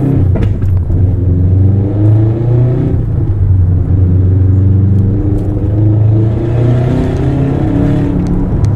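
Subaru WRX STI's IAG-built turbocharged EJ25 boxer four heard from inside the cabin while driving. It runs at fairly steady revs, its pitch rising a little and easing off again.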